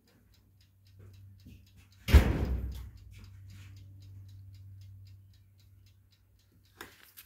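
A loud thump about two seconds in that dies away over about a second, over a faint steady hum and light ticking about four times a second.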